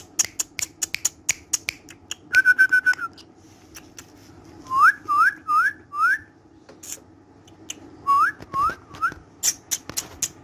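Whistling: one held note, then short upward-swooping whistles in a run of four and a later run of three, over many sharp clicks.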